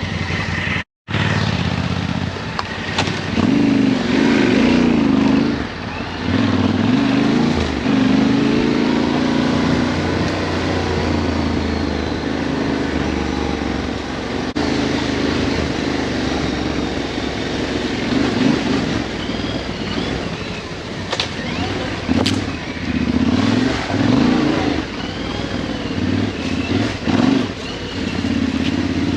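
Yamaha Ténéré 700 parallel-twin engine running off-road, its revs rising and falling as the rider works the throttle, with a few sharp knocks in the second half. The sound cuts out briefly about a second in.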